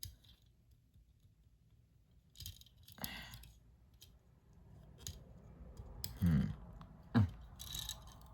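Scattered small clicks and knocks of a die-cast model car being handled as its little opening hood is worked open, which goes roughly at first. The loudest knocks come about six and seven seconds in.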